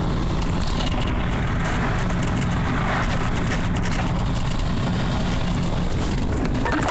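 Steady engine drone and running noise heard from inside a truck cab.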